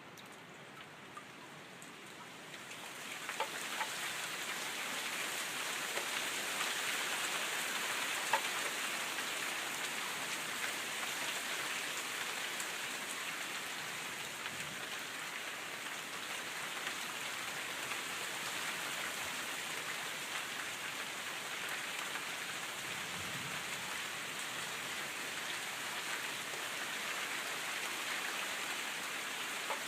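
Rain falling, at first light with separate drops ticking, then about three seconds in it picks up into a dense, steady hiss of rain.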